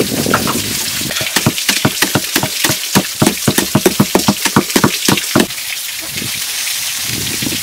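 Stone pestle pounding toasted rice grains in a stone mortar: quick, even strikes about five a second, starting about a second in and stopping about five and a half seconds in, over a steady hiss.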